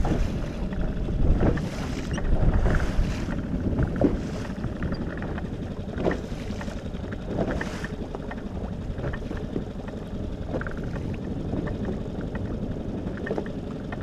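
Sea water splashing and washing against the hull of a moving inflatable boat, with wind on the microphone. The splashing is louder for the first few seconds, then settles into a steadier wash with a few separate slaps.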